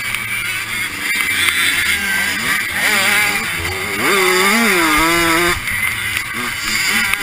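Dirt bike engine with a freshly rebuilt top end, run hard, its pitch climbing and falling with each throttle change and gear change. It drops off sharply a little over five seconds in.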